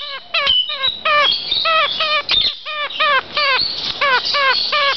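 Kakariki (New Zealand parakeet) chattering: a rapid run of short, repeated, downward-bending calls at about four to five a second.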